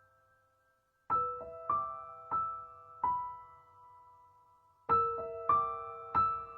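Slow background music of single piano notes, each struck and left to ring. The notes start about a second in, after near silence, and come in two slow groups.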